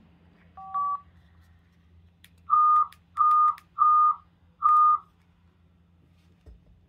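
Electronic beep tones from the digital-voice radio setup just after the push-to-talk is released: first a short two-note beep, then about a second and a half later four separate steady beeps at one pitch, each under half a second long. A faint steady electrical hum lies underneath.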